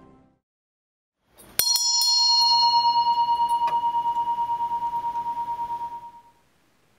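A bell struck sharply, ringing a clear tone with higher overtones that wavers in loudness as it dies away. It is struck again lightly about two seconds later and cuts off suddenly. The fading tail of choral music is heard at the very start.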